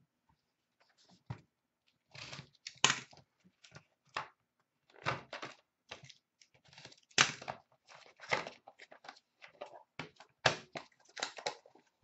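A small cardboard box being handled and opened, set down on a glass counter: a run of irregular sharp clicks, taps and scuffs.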